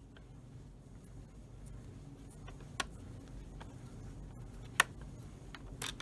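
A few sharp clicks and taps of a laptop's hard plastic casing being handled and pried during disassembly, the loudest about two-thirds of the way in and a short cluster near the end, over a low steady hum.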